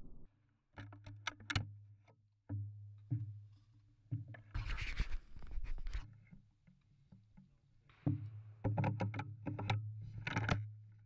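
Close handling noise from a gun-mounted camera: a run of sharp clicks and scrapes, about a second of rubbing rustle midway, then a quicker flurry of clicks and scrapes near the end. No shot is fired.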